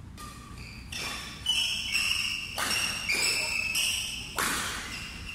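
Badminton doubles rally: the shuttlecock is struck by rackets in quick exchanges, several sharp hits about half a second apart, while shoes squeak on the rubber court mat.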